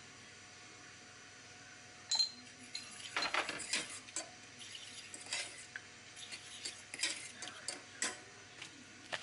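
Metal fork stirring cod and prawns in a stainless steel pot: irregular clinks and scrapes of metal against the pot, beginning about two seconds in.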